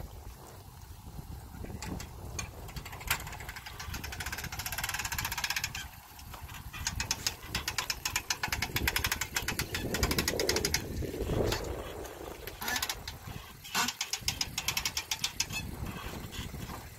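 Boat trailer's hand-crank winch ratcheting as the bow strap is wound in, drawing the boat up onto the trailer. It is a fast, even run of clicks, starting about three seconds in and coming in long stretches with a short break, until near the end.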